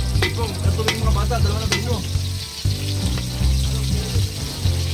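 Food frying in hot oil: a steady sizzle with sharp crackles and pops. Music with a deep bass line plays under it.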